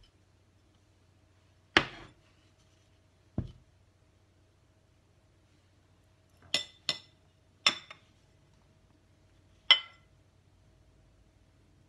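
A metal spoon clinking against china bowls and a glass saucer: six separate clinks, several with a short bright ring.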